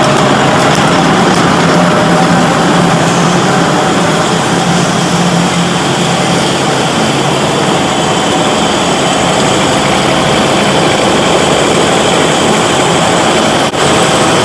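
Steady, loud noise of welding-rod factory machinery in the wire-drawing section, where steel wire rod is drawn down to electrode core size. A low hum runs through the first half, and the noise briefly drops out near the end.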